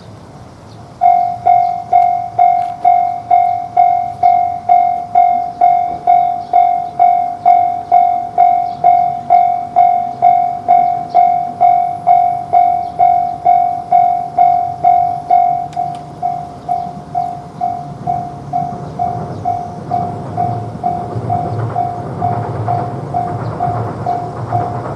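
Japanese railroad crossing warning bell ringing "kan-kan", a clear pitched strike about twice a second, starting about a second in and turning quieter after about fifteen seconds. A train's rumble builds under it near the end as the train approaches.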